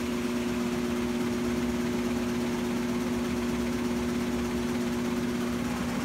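Maytag Bravos top-load washing machine in its spin cycle: the motor spins the drum with a steady hum.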